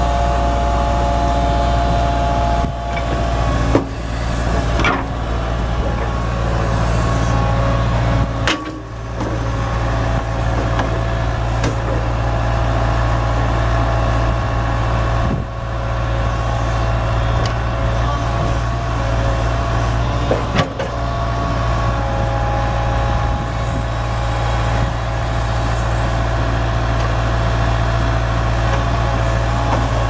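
Walking excavator's diesel engine running steadily while it digs, with hydraulic whine as the boom and bucket move and a few brief clunks.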